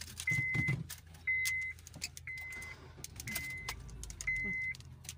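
A car's warning chime beeping steadily, a high tone about half a second long once every second. Underneath is the low hum of the car running, heard from inside the cabin.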